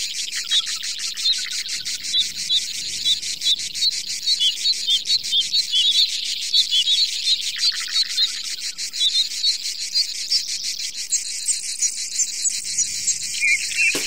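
Insects chirping in a dense, fast, even pulsing chorus, with small birds calling in short chirps throughout.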